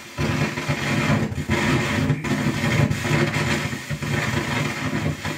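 Radio broadcast audio from a Pioneer TX-9800 FM stereo tuner as its dial is being turned between stations. The sound is dense and steady, with a short dropout at the start and a few brief dips.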